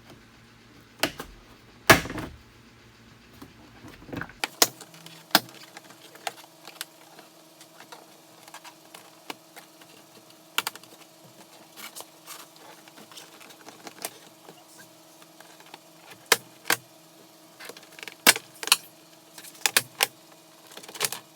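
Scattered sharp clicks, taps and knocks of hand work on a Jeep Wrangler door's interior: a pry tool and plastic trim being worked loose. A faint steady hum comes in about four seconds in.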